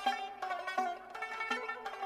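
Background instrumental music: a quick melody of short, sharply struck notes.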